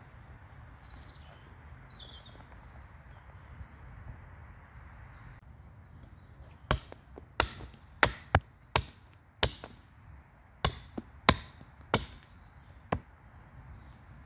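Axe chopping a wooden bowl blank held upright on a chopping stump, shaping and thinning the carving. There are about eleven sharp chops in the second half, irregular and at times two or three a second.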